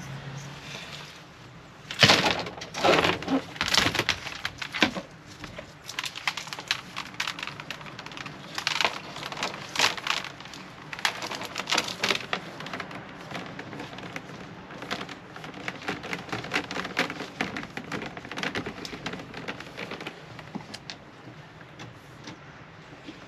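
Irregular knocks, clicks and rattles of hand work with parts and tools, loudest in a cluster about two to four seconds in, then scattered and fainter.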